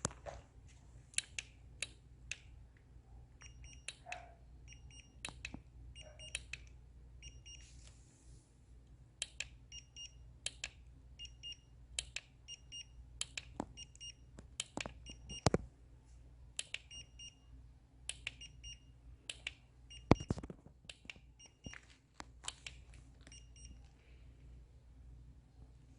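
Burning compressed firewood crackling and popping irregularly. An electronic beeper sounds in short repeated beeps about once a second through much of it.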